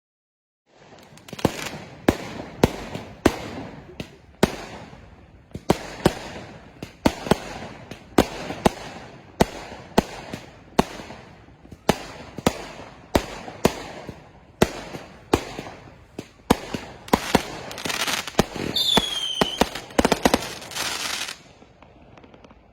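Fireworks going off in quick succession: sharp bangs about one or two a second with crackling between them. Near the end comes a denser burst of crackling with a falling whistle, and then it stops suddenly.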